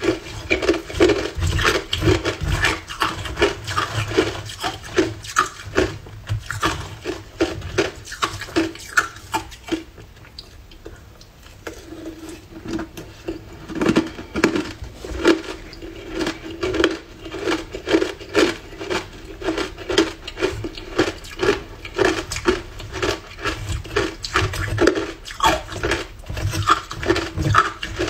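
Hard ice dusted with matcha powder being crunched between the teeth: a fast run of sharp crunches, two or three a second, easing off for a couple of seconds near the middle before going on. A steady hum runs underneath.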